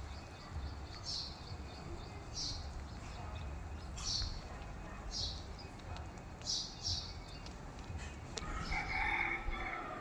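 A rooster crowing once near the end, after short high chirps that recur every second or so, over a low steady rumble.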